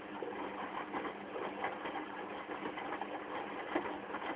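Washing machine running: a steady motor hum as the drum turns, with irregular soft knocks and swishes from the laundry tumbling inside.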